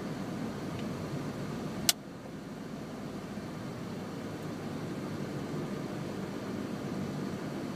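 Steady car engine and road noise heard from inside the cabin. There is a single sharp click about two seconds in, after which the noise drops a little and slowly builds again.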